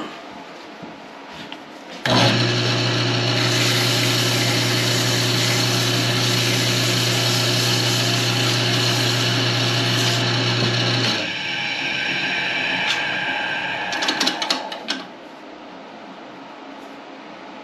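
Toothed overstitch wheel, used as a lathe texturing tool, pressed against spinning wood on a wood lathe: a sudden, loud, steady-pitched buzz with a harsh hiss starts about two seconds in. It eases off a little after about eleven seconds, crackles briefly near fifteen seconds, and stops as the tool comes off, leaving the lathe's quieter running sound.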